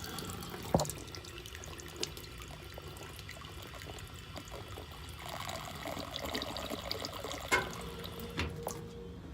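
Water running from a drinking fountain in a steady splashing stream, a little stronger past the middle, with a couple of sharp clicks.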